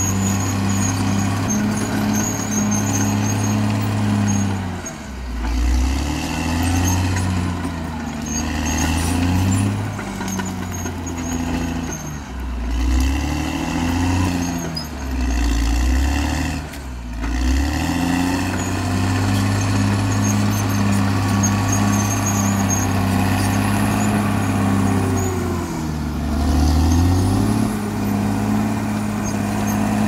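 CAT D6R XL bulldozer's diesel engine working under load. Its pitch sags and recovers several times through the middle, as it bogs under the push and picks back up, and dips once more near the end.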